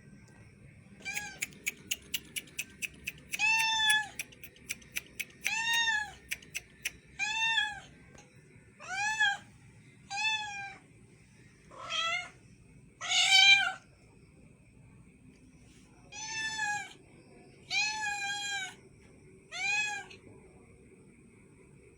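A cat meowing about ten times, each meow rising then falling in pitch, roughly one every one and a half seconds, the loudest just past the middle. A run of quick sharp clicks, about three a second, sounds under the first few meows.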